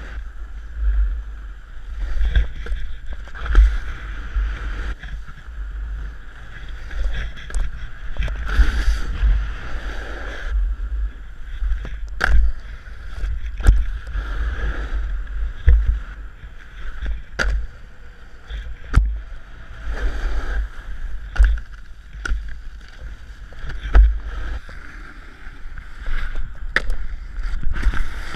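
Snowboard riding down a groomed slope, heard through an action camera on a pole: a low buffeting rumble of wind and motion, a steady scraping hiss of the board on the snow, and sharp knocks every second or two.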